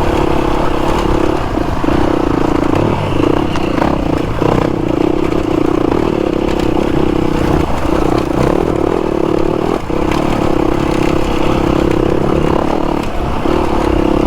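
Dirt bike engine running hard as the bike is ridden along a rough lane, its note dipping briefly about half a dozen times as the throttle is eased or a gear is changed, with some clatter from the bike over the rough ground.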